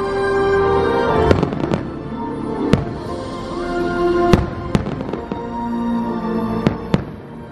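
Aerial firework shells bursting overhead, about eight sharp bangs at irregular intervals, over the fireworks show's soundtrack music with held notes.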